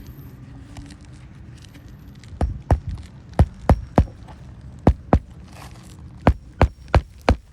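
Hammer driving roofing nails into asphalt shingles: about a dozen sharp strikes in quick groups of two or three, starting a couple of seconds in.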